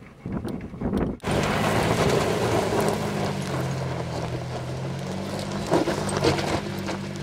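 Nissan Xterra's engine running steadily as the truck drives off-road, with tyre and road noise and a few short knocks near the end. The engine sound comes in sharply louder about a second in.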